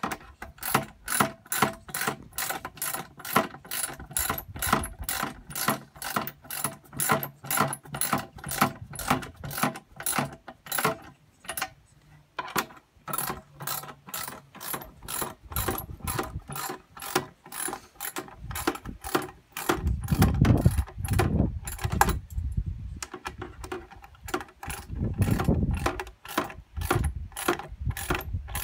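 Ratchet spanner clicking in quick, regular strokes, about three clicks a second, as a bolt is tightened from inside a plastic feed drum, with a couple of short pauses. Dull low thumps from handling the drum come twice in the later part.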